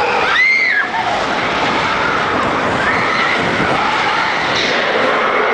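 Expedition Everest roller coaster train running in the dark: a steady rush of wind and track noise. A short high shriek comes about half a second in.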